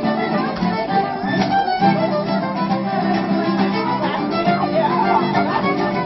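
Mariachi ensemble playing live: a violin carries the melody over steadily strummed acoustic guitars.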